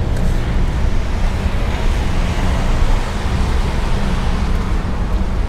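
Street ambience of road traffic: a steady low rumble of passing cars with a hiss of tyre noise above it.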